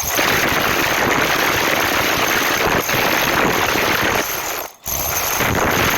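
Electric drill driving a concrete hole saw into a brick-and-concrete wall: a loud, steady grinding cut that stops briefly about five seconds in and then starts again.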